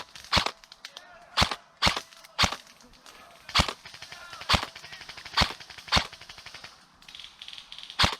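Airsoft gun firing single shots: about ten sharp cracks, irregularly spaced half a second to a second apart, with a pause of about two seconds before a last shot near the end.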